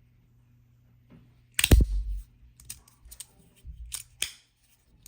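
Magnetic fidget slider being worked by hand: one loud sharp snap about a second and a half in, then a string of lighter clicks as the plates slide and snap into place.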